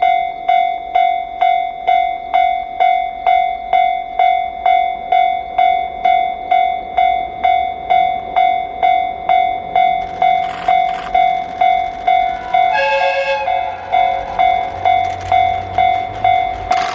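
Japanese railway level-crossing warning bell ringing about twice a second, an even ding-ding. About three-quarters of the way through the approaching diesel limited express gives a short horn blast of about a second, and the train's rumble builds toward the end as it reaches the crossing.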